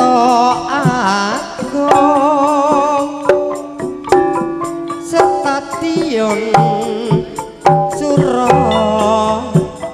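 Live Javanese campursari music: frequent hand-drum strikes under held melodic tones, with a voice singing wavering, vibrato-laden phrases twice.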